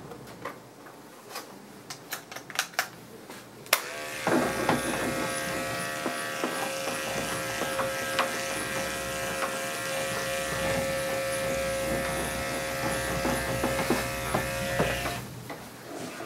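Electric dog-grooming clippers switched on about four seconds in, buzzing steadily as they clip a Scottish terrier's coat, then switched off about a second before the end. A few sharp clicks of handling come before they start.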